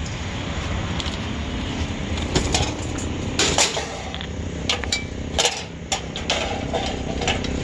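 Wire-mesh crab pot clattering onto a pile of scrap wire and metal in a pickup bed: a string of sharp metallic knocks and clinks over several seconds, the loudest about three and a half seconds in.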